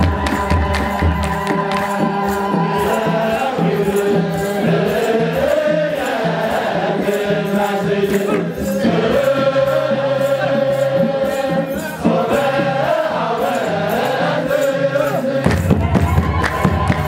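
Ethiopian Orthodox clergy (debteras) chanting a wereb hymn together in long held notes that step slowly up and down, over a steady beat of kebero drums. The deep bass of the drums is strongest at the start and again near the end.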